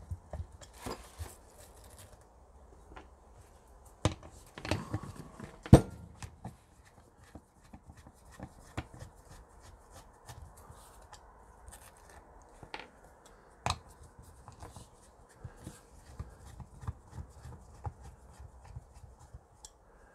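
Handling noise from taking apart an orbital sander's backing pad: a screwdriver working the pad screws and small parts set down on a wooden workbench. It makes scattered light clicks and knocks, with a sharper knock just before six seconds in and another near fourteen seconds.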